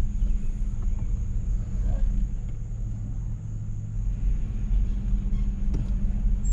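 A car running at low speed, with a steady low rumble from the engine and road.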